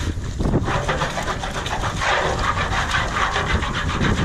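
Soapy water sloshing and a brush scrubbing the inside of a large metal cauldron, a wet swishing scrub that gets louder about two seconds in.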